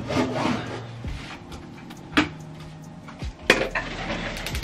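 Rummaging in an ottoman bed's storage compartment: a plastic bag of decorations rustling and items knocking together, with sharp knocks about two and three and a half seconds in.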